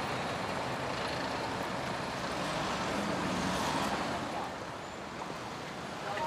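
Road traffic: trucks and cars passing close by, a steady noise that swells about three to four seconds in.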